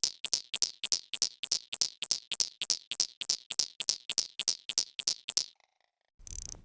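Clock ticking sound effect: a fast, even run of sharp ticks, about four a second, that stops about five and a half seconds in, followed by a short noisy burst near the end.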